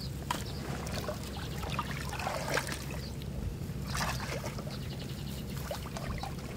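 Water trickling and sloshing, with scattered short scrapes and clicks; a brief louder splash-like burst comes about two and a half seconds in and another about four seconds in.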